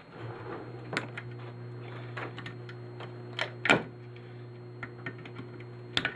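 Scattered sharp clicks and clinks of small metal and plastic power-strip parts being handled, the loudest about a second in, near four seconds and near the end, over a steady low hum that sets in right at the start.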